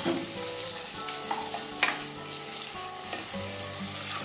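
Chopped onion and tomato sizzling in hot oil in a nonstick kadhai while a plastic spatula stirs them, with a few sharp knocks and scrapes of the spatula against the pan, the loudest about two seconds in.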